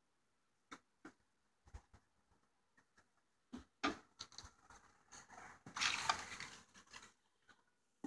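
Gloved hands handling a wooden beehive box, its top-bar frames and a piece of comb. Scattered light knocks and clicks, then a second or so of louder rubbing handling noise about six seconds in.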